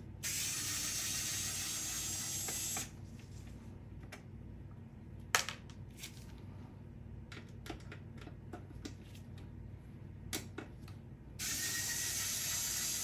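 Electric screwdriver backing out the DVR's back-panel screws: two runs of about two and a half seconds each, with small clicks and handling noise between them.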